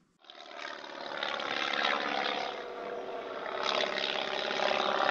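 A steady engine drone fading in after a moment of silence, swelling a little near the end. It was laid over the closing card.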